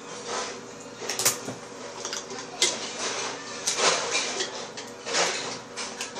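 Objects being handled: a string of sharp clicks and short rustling scrapes, irregularly spaced, the loudest about a second in and near the middle.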